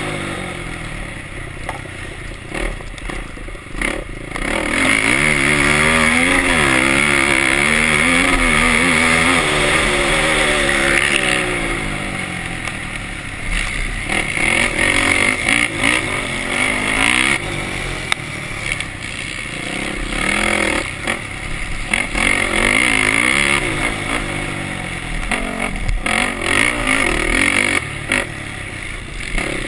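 Race quad's engine, heard from on board, revving hard and easing off again and again as it is ridden around a dirt motocross track, the pitch climbing and dropping with each burst of throttle.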